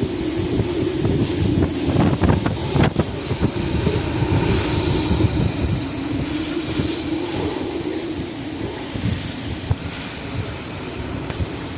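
Major-hurricane eyewall winds blowing hard and without a break, a deep rumbling rush that sounds like a freight train, with gusts swelling and easing. A few sharp knocks about two to three seconds in, likely debris or gusts striking.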